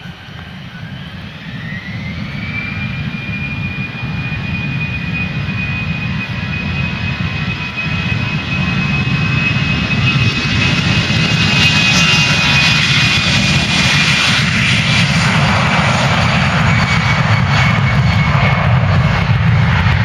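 Jet engines of an easyJet Airbus airliner spooling up for takeoff: a whine rises in pitch over the first couple of seconds, then holds steady while the engine noise keeps growing louder over a low rumble.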